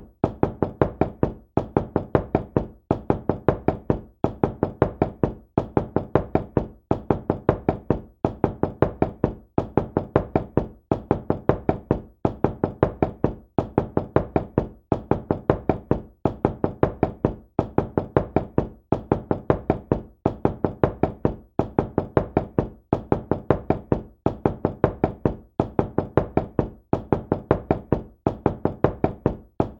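Knocking on a door: quick groups of four or five raps with a short pause between groups, repeating about every second and a half without let-up.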